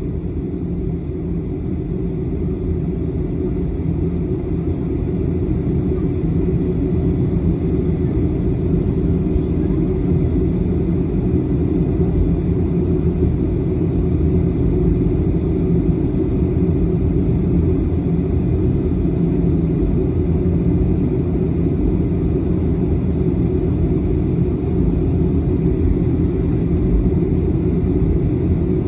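Inside the cabin of a jet airliner taxiing: a steady low rumble of the engines at taxi power and the aircraft rolling along the taxiway. It grows a little louder over the first few seconds.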